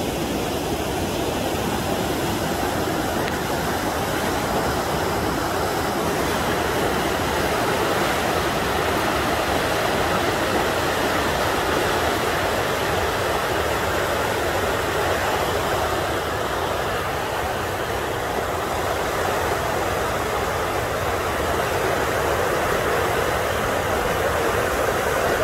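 Fast muddy floodwater rushing past in a steady, unbroken rush of churning water.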